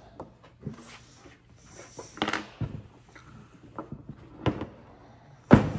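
La Piccola Cecilia espresso machine's metal housing being tipped over onto its side on a work table: a series of knocks, clunks and scrapes, the loudest near the end.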